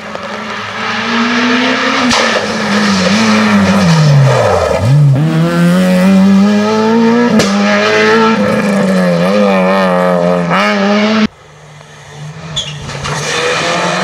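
Rally car engine at full effort through a hairpin: its pitch climbs, drops steeply as the car brakes and turns, then climbs again through the gears as it accelerates away, with a few sharp pops. About eleven seconds in, the sound cuts to a second rally car approaching, its engine rising as it comes closer.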